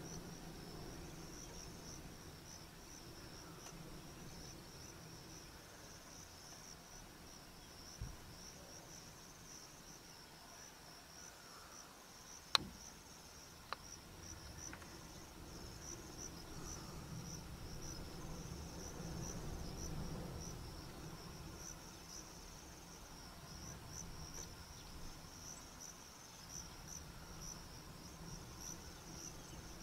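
Faint steady chorus of insects chirring, a continuous high trill with a fine pulse. Two sharp clicks come about halfway through, a little over a second apart.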